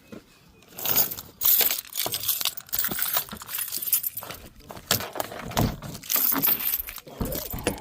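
A bunch of keys jangling and clinking as they are picked up and handled. It starts about a second in and goes on in irregular clatters.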